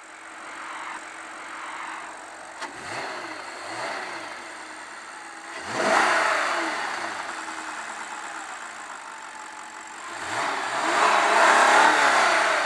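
Audi RS5's 4.2-litre V8 FSI engine idling and being blipped with the hood open: two small revs a few seconds in, a sharp rev about halfway, and a longer, louder rev near the end. There is a short click early in the idle.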